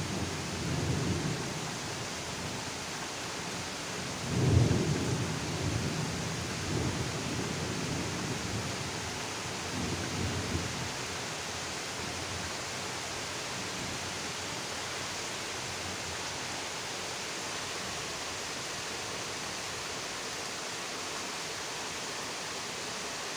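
Thunder rumbling over steady rain. A low rumble at the start, then a sudden louder peal about four and a half seconds in that rolls on and fades over several seconds. After that only the steady hiss of rain.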